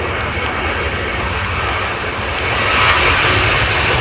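Boeing 737-800's twin CFM56 jet engines running at high thrust as the airliner departs, a loud rush with a deep rumble that grows louder about two and a half seconds in.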